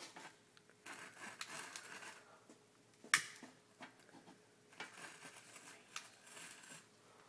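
Faint hissing and crackling as a lighter flame is held to a homemade mini cannon, with one sharp click about three seconds in.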